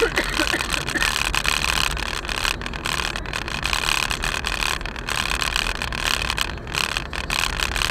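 Steady engine and road noise of a car driving along, heard from inside the cabin through a windscreen-mounted dashcam.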